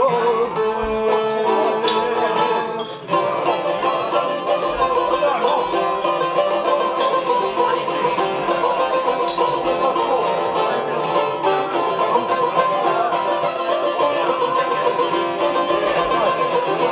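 Long-necked Albanian lute playing a plucked instrumental passage between sung verses. A held note ends about three seconds in, then a fast, busy run of plucked notes continues.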